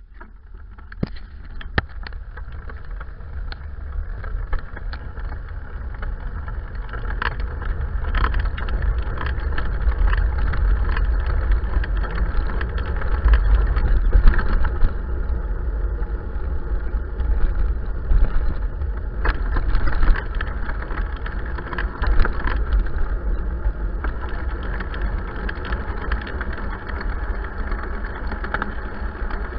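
Wind buffeting the microphone and tyre rumble from a bicycle being ridden over tarmac, growing louder over the first ten seconds or so as it picks up speed, with scattered knocks and rattles as it goes over bumps.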